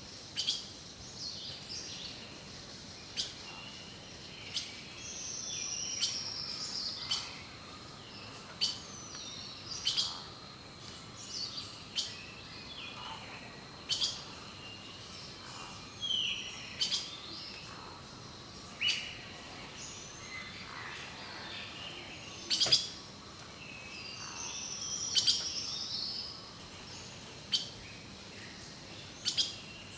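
Several songbirds singing and calling: short chirps and warbled phrases, sharp chips a second or two apart, and longer descending whistles about six seconds in and again near twenty-five seconds, over a faint steady high tone.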